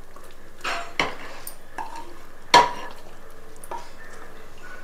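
Wooden spatula scraping sticky glazed chicken lollipops out of a honeycomb-pattern steel frying pan onto a plate, with a few knocks and clinks of the pan against the plate, the sharpest one about two and a half seconds in.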